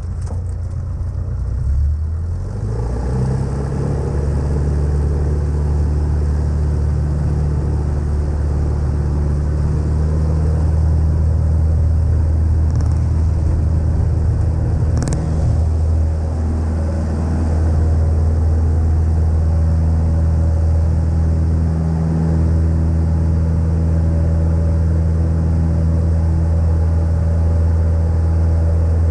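Cessna 152's four-cylinder Lycoming piston engine and propeller opening up to full take-off power. The engine note rises over the first few seconds, then holds a steady drone, with one brief click about halfway through.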